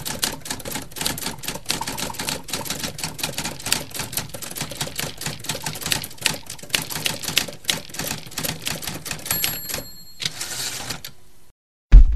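Manual typewriter keys clacking in rapid, uneven strokes for about nine seconds. Then a short bell ding and a brief sliding rasp, as the carriage bell rings and the carriage is returned. A single loud low thump comes near the end.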